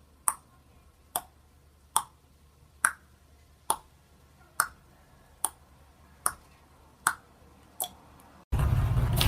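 A sharp click repeating at an even pace, a little more than once a second, about ten times. Near the end a loud burst of noise starts.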